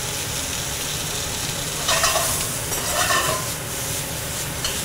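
Cubed catfish frying in hot oil in a pan: a steady sizzle that flares up louder twice, about two and three seconds in.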